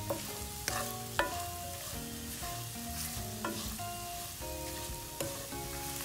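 Okra, onions and curry leaves sizzling in a frying pan while a wooden spoon stirs them, with a few sharp scrapes and knocks of the spoon against the pan. It is the last stage of frying, after the curry leaves go in.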